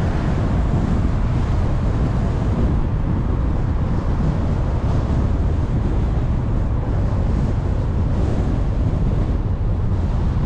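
Steady low rumble of a car driving along a street: road and tyre noise with wind buffeting the microphone.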